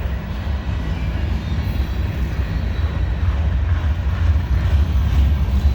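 Freight train cars rolling past, a steady low rumble.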